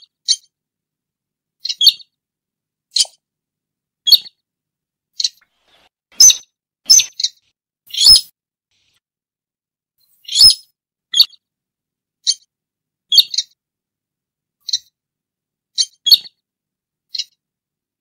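Sintar, the buff-banded rail, calling: short, sharp, high-pitched notes repeated about once a second, some in quick pairs, with a pause of about two seconds in the middle.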